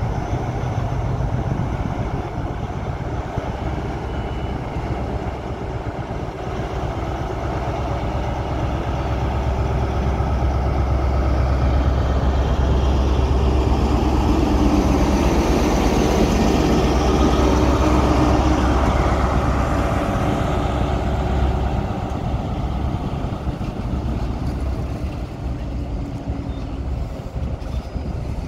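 Class 43 HST power car 43004 departing under power, its MTU V16 diesel engine growing steadily louder as it passes close. It is loudest around the middle, then fades as the coaches roll by.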